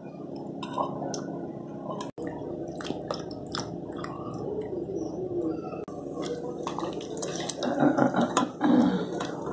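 Wet tomato chunks handled by hand in water and dropped into a steel mixer jar: drips, squelches and splashes with sharp clicks, the loudest cluster of bumps near the end.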